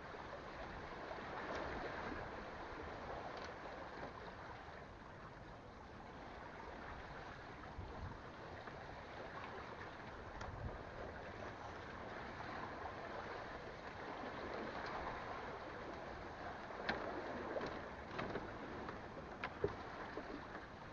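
Steady wash of sea water around a fishing platform, with a few faint ticks near the end.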